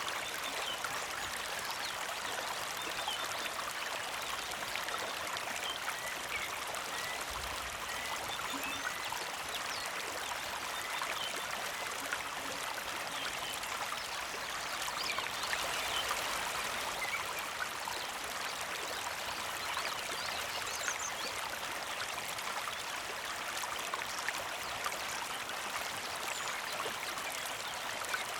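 Small creek trickling, a steady, even flow of water.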